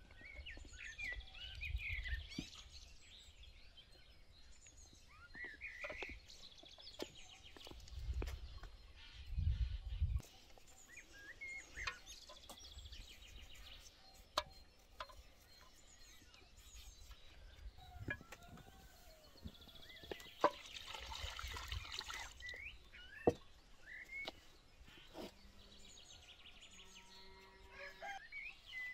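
Rural outdoor ambience: small birds chirping and chickens clucking, with a few sharp clicks and occasional low rumbles.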